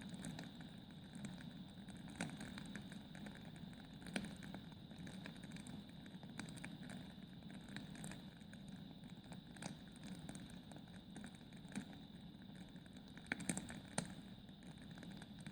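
Wood fire in a fireplace burning with a steady low rumble and irregular crackles and pops from the logs, a few louder pops about two and four seconds in and a cluster near the end.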